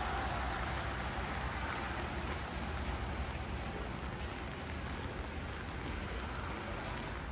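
Heavy rain falling on city pavement: a steady hiss with a low rumble underneath.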